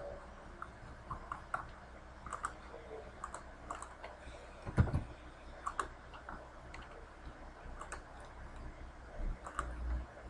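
Scattered clicks of a computer mouse, with a louder low thump about five seconds in.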